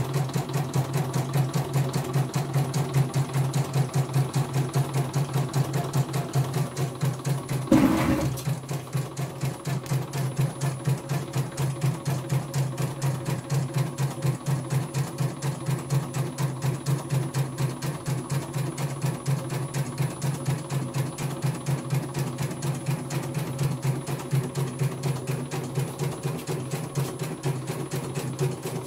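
CNY E900 computerized embroidery machine stitching a design on a test run, its needle running at a steady, rapid, even rhythm. A brief knock sounds about eight seconds in.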